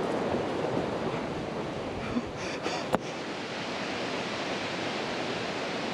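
Steady rush of a river's water, with a single sharp click about three seconds in.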